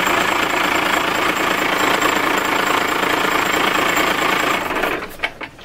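Cummins marine diesel engine running steadily, then shut down by a push on the manual stop lever of its fuel shutoff solenoid. About four and a half seconds in it winds down and stops, with a few last knocks as it comes to rest.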